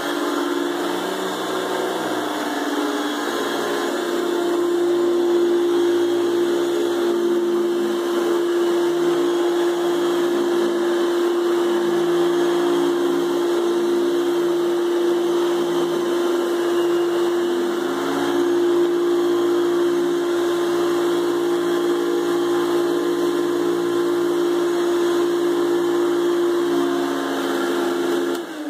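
Hoover Celebrity 2 Elite canister vacuum cleaner running steadily with an even, high motor whine and air hiss; the motor has a new bearing and runs smoothly. It cuts off and begins to wind down at the very end.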